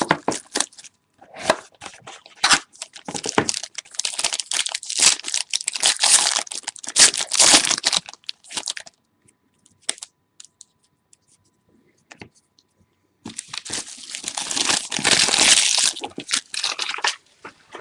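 Plastic wrapping on a sealed trading card box being torn and crumpled, in two long stretches of crinkling with a few quiet seconds between them.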